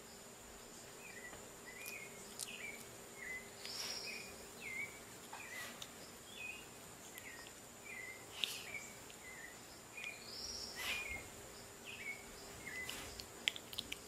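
Faint background ambience: a steady high whine with short chirps repeating about twice a second. A couple of brighter calls come through, and a few soft clicks.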